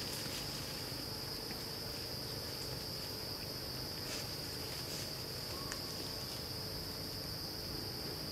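Insects buzzing in a steady, unbroken high drone, with a few faint clicks.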